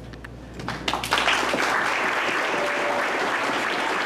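A crowd applauding: a few scattered claps, then about a second in the full applause sets in and holds steady.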